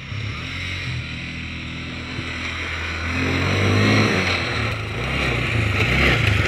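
Auto-rickshaw's small engine running as it drives up close, getting louder from about three seconds in, its pitch shifting as it changes speed.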